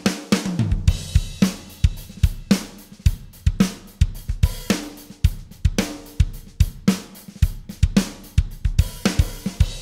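Sampled rock drum loop from Steven Slate Drums 5, with kick, snare, hi-hat and cymbals in a steady beat of about two heavy hits a second, playing through a Wes Audio Dione SSL-style VCA bus compressor set to about 10 ms attack, fast release and 4:1 ratio, for roughly 3–4 dB of compression.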